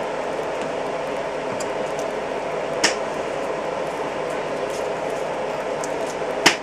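Hands squishing and turning mayonnaise-coated pork and onion rings in an enamel bowl, over a steady background hum, with two sharp clicks, one near the middle and one near the end.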